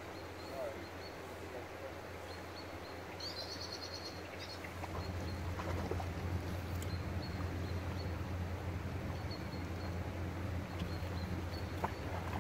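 Wind buffeting the microphone, a low rumble that grows louder about five seconds in, with a small bird giving a quick run of high chirps around three seconds in.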